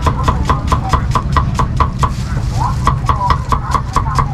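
Cleaver slicing a cucumber on a thick round wooden chopping block: rapid, even knocks of the blade on the wood, about five a second.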